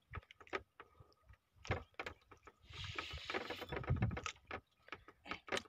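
Scattered irregular knocks and clicks on a small wooden fishing boat, with a short hiss-like rush about three seconds in and a dull thump just after it.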